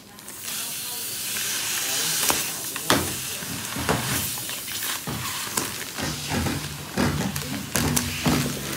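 Air hissing steadily into a vacuum-compressed spring mattress as its plastic wrapping is cut open with scissors. Plastic crinkles and scissor snips click through the hiss.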